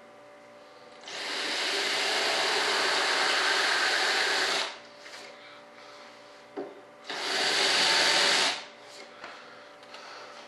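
A power tool runs in two bursts, the first about three and a half seconds long with a short spin-up, the second about a second and a half, over a faint steady hum.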